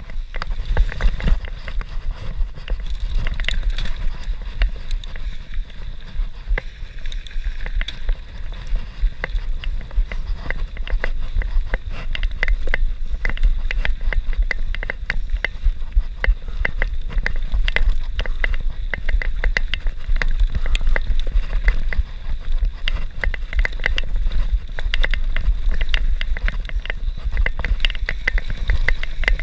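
YT Industries Capra carbon enduro mountain bike descending a dirt and stony gravel trail: tyres crunching over the ground, with dense, irregular clattering and rattling of the bike over bumps and stones. A steady low rumble of wind on the microphone runs underneath.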